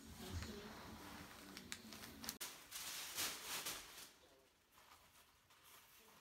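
Faint rustling of a cardboard box being handled, with a few light knocks.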